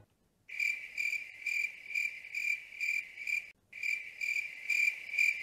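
Cricket-chirping sound effect: an even run of high chirps, about three a second, starting after a moment of dead silence and breaking off briefly around three and a half seconds in. It is the stock 'crickets' gag, standing for an awkward silence after an unanswered call.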